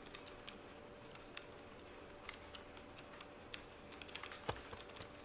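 Faint, irregular clicking of keys on a computer keyboard as someone plays at the computer, with one sharper knock about four and a half seconds in, over a faint steady hum.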